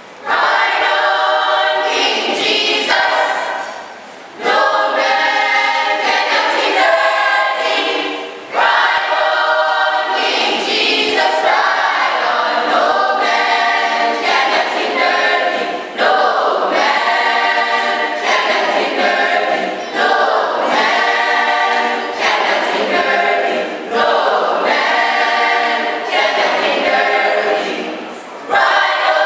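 A choir singing in long phrases, with brief breaks between them every few seconds.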